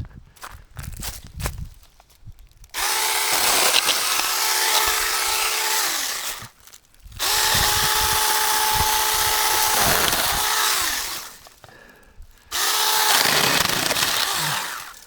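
Saker battery-powered handheld mini-chainsaw running in three bursts of about three to four seconds each while cutting branches, its motor whine dropping in pitch as each burst ends.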